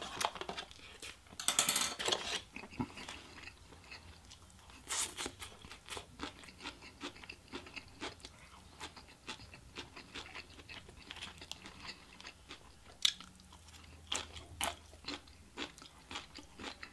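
A person chewing and biting food close to the microphone: many small wet clicks and crunches, with a louder noisy stretch about a second and a half in.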